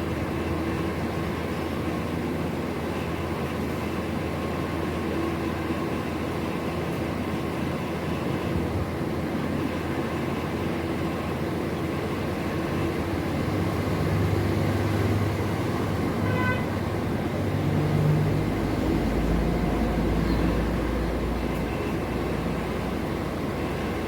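Steady low rumble of running vehicle engines, growing louder for several seconds past the middle, with a brief higher-pitched tone about two-thirds of the way through.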